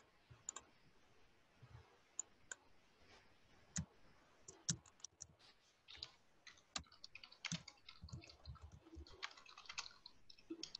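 Faint computer keyboard typing and clicks: a few scattered clicks at first, then a quick run of keystrokes from about halfway through.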